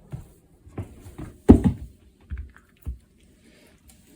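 A run of separate knocks and clatters as a cat's breakfast is set out. There are about half a dozen taps, the loudest about a second and a half in, and they die away after about three seconds.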